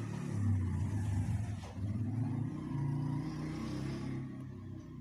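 A motor vehicle engine running low and unevenly, its pitch rising and falling as if revving, easing off near the end.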